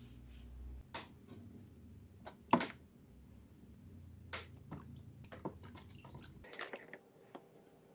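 Wiper-motor gears being scrubbed with a brush in a plastic tub of water: splashing and sloshing with scattered knocks, the loudest a sharp knock about two and a half seconds in.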